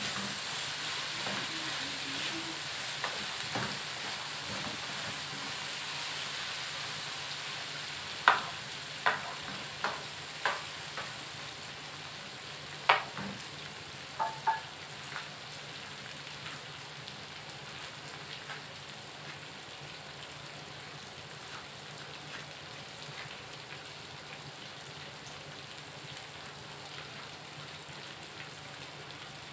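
Peanuts and garlic frying in a pan, a steady sizzle that slowly fades, with a wooden spatula stirring them at first. About seven sharp clicks come between about eight and fifteen seconds in.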